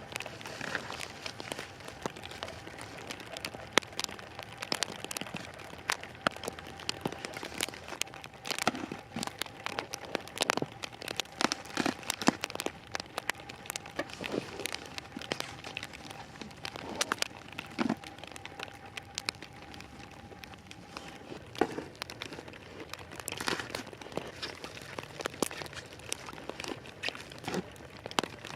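Plastic wrap crinkling and crackling as it is handled, with many irregular sharp crackles and clicks.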